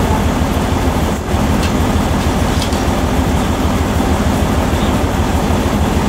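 An engine idling steadily with a low, even rumble.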